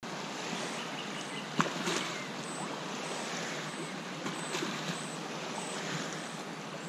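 Small lake waves lapping on a sandy shore: a steady watery wash with a few brief splashes, the sharpest about a second and a half in.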